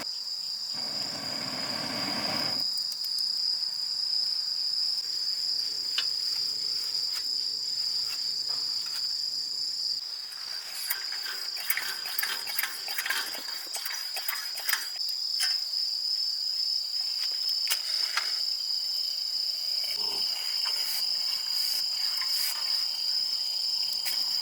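Crickets chirring in a steady, continuous high tone. A short rushing noise comes at the start, and scattered light clicks and knocks of handled gear come in the middle and later.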